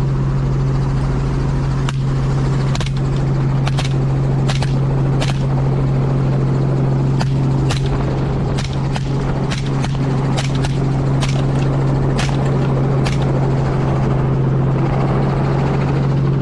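Helicopter engine and rotor drone heard from inside the open-door cabin, with a string of sharp rifle shots from a semi-automatic rifle fired out the doorway: about fifteen shots from about two seconds in until near thirteen seconds, some in quick pairs.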